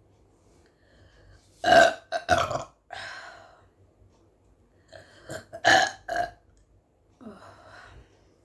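A woman burping loudly several times, burps brought on by drinking carbonated Pepsi: a run of three burps about two seconds in, another run of three about five seconds in, and a fainter, longer one near the end.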